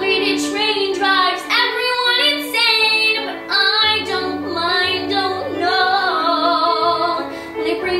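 A young female voice singing a musical-theatre song with vibrato on held notes, over an instrumental accompaniment of sustained chords and bass.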